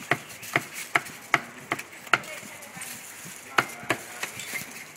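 Meat cleaver chopping roast duck on a thick round wooden chopping block: a steady run of six sharp chops, a pause of about a second, then two more.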